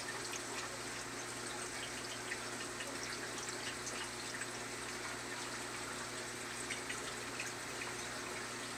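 Aquarium water circulating: a steady trickling and bubbling with small scattered pops over a low, even hum.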